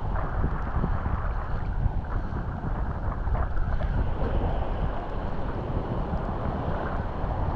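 Wind buffeting the microphone in uneven gusts, with sea surf washing behind it.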